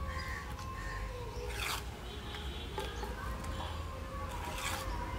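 A small hand trowel scraping through sand and cement mortar: two brief rasping strokes about three seconds apart.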